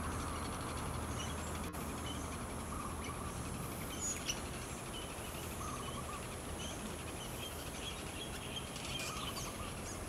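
Faint, scattered short bird chirps over a steady outdoor background hum.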